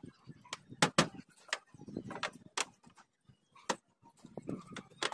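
Hands working aluminum adhesive tape: a series of sharp, short clicks and snaps, two loud ones close together about a second in, the rest spaced irregularly.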